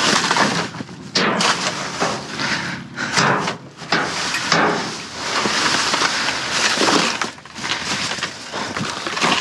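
Trash in a dumpster being rummaged through by hand: irregular rustling with sharp clattering knocks of hard discarded items, thickest a few seconds in.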